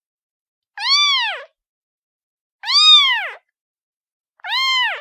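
Kitten meowing three times, each call about half a second to under a second long, rising then falling in pitch.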